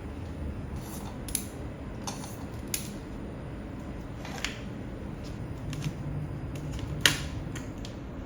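Scattered sharp clicks and light taps from handling a journal and stationery, at irregular intervals over a low steady room hum, with the loudest click about seven seconds in.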